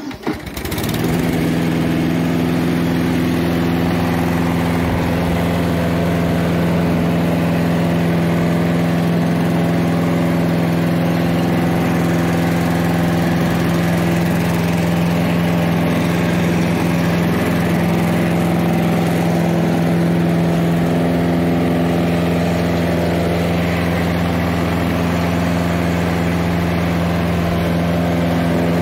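Briggs & Stratton engine of a Hayter Harrier 48 rotary mower catching within the first second, then running steadily at an even speed.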